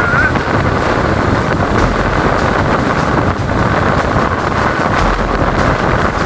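Hurricane-strength blizzard wind blowing hard and steadily across the microphone, with a vehicle running beneath it.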